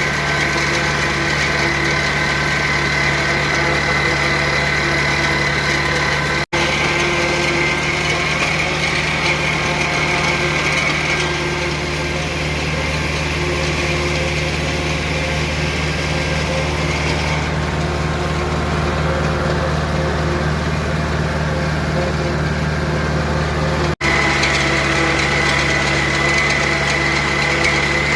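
Farm tractor engine running steadily at the corn-silage chopper, with a steady high whine over the low engine drone.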